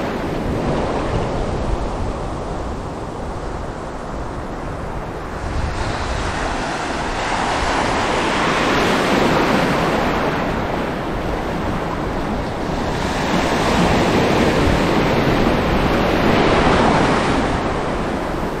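Heavy sea surf washing in, the noise swelling twice as waves come through, with wind buffeting the microphone.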